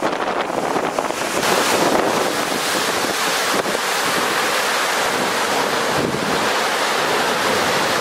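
Storm surf breaking and washing over shoreline rocks in a continuous rush, mixed with heavy wind buffeting the microphone.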